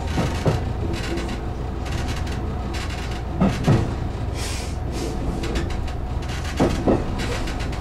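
HB-E300 hybrid railcar heard from the driver's cab, rolling through station pointwork with a steady low running rumble; its wheels clunk over rail joints and points in pairs, three times.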